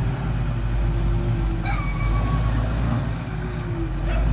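Heavy diesel engine of earthmoving equipment running steadily, with a brief high tone that falls in pitch about halfway through.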